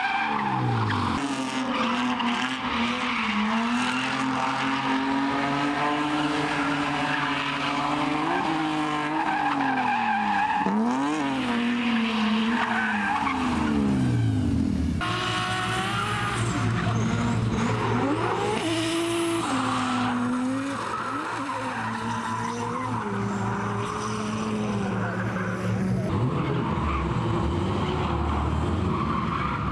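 Drift car engines revving hard, the pitch swinging up and down as the throttle is worked through the slides, with tyres squealing and skidding. The sound changes abruptly about halfway through.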